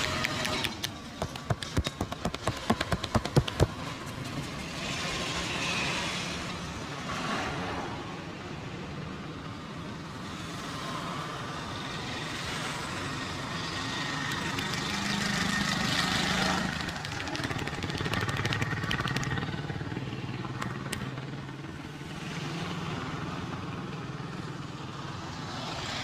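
Rapid slapping and tapping of hands on the head and shoulders in a massage for about the first four seconds. After that, street traffic noise carries on, with vehicles swelling past now and then.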